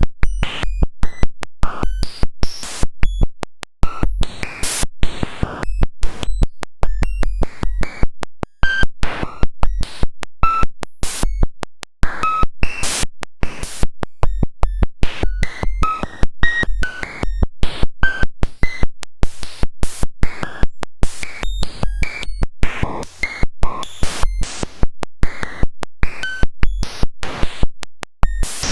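Sonified cellular-automaton data: a Golly Generations rule's normalized population ratio written straight into the waveform as samples. It comes out as a loud, harsh electronic stream of rapid clicks and noisy buzzes, with short tones that jump in pitch every fraction of a second and repeated low thuds.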